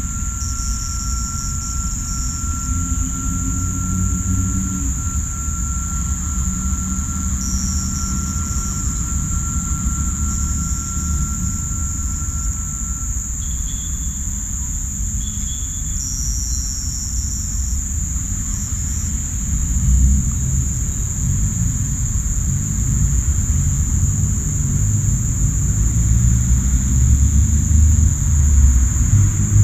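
Crickets and cicadas calling in a loud, steady, high-pitched chorus, with shorter extra calls rising over it a few times. Under the chorus runs a loud low rumble that grows louder in the second half.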